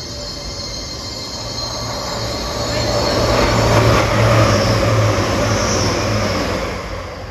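Class 221 Super Voyager diesel-electric multiple unit running past on the adjacent track, its underfloor diesel engines humming low over wheel and rail rumble, with a high wheel squeal. It builds to its loudest about four seconds in, then fades as the train draws away.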